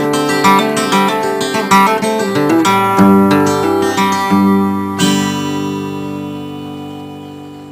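Guitar music: quick picked notes, then a few strummed chords, ending on a last chord about five seconds in that rings on and slowly fades.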